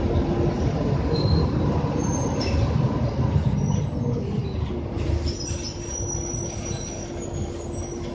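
Interior of an RTS city bus under way: engine and drivetrain drone with road rumble and rattling, a whine that slides down in pitch about halfway through, and a thin high squeal in the second half.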